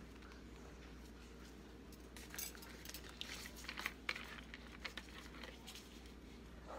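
Faint scattered clicks and rustles of gloved hands handling kitchen items, including a plastic lemon juice bottle, starting about two seconds in over a low steady hum.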